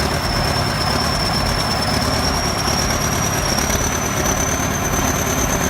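Heavy machinery running loudly, with a steady high-pitched whine that slowly rises in pitch.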